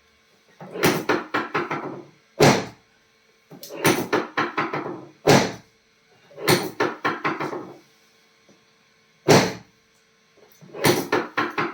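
Repeated knocks and thuds in a pattern: a quick run of several knocks lasting about a second, then one sharp single knock, the pattern coming round about every three seconds.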